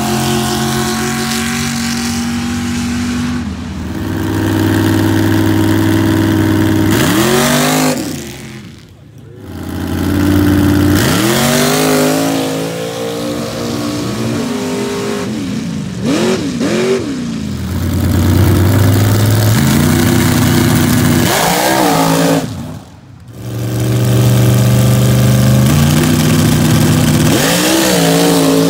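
Dirt drag race vehicles revving and launching one after another, each engine note climbing and holding in steps as it accelerates away down the strip. The sound drops away briefly twice, about a third of the way in and again near three quarters.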